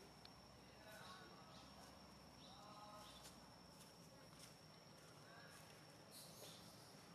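Quiet outdoor ambience. A steady high insect whine runs throughout, with a few faint short chirping calls and light scattered clicks.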